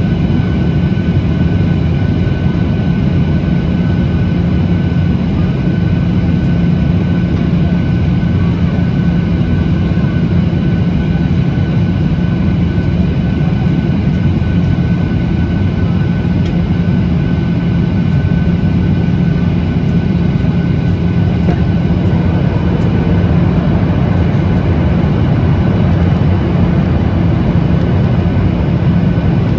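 Steady cabin noise of a Boeing 737-800 descending on approach, heard from a seat over the wing: a deep, even rumble of its CFM56-7B engines and rushing air, with a thin steady whine above it.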